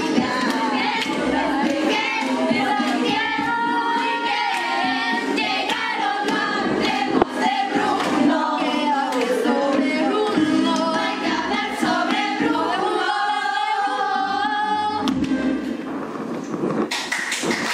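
Ensemble of young voices singing a stage musical song in Spanish over musical accompaniment. Right at the end the song stops and the audience breaks into applause.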